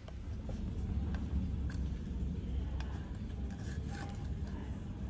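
Light clinks and knocks from a stainless blender jar being handled and tipped to pour out thick praline paste, over a steady low rumble.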